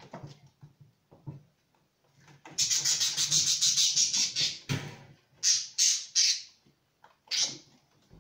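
Budgerigar squawking while held in the hand: a harsh, rapid run of squawks for about two seconds from about two and a half seconds in, then a few short squawks.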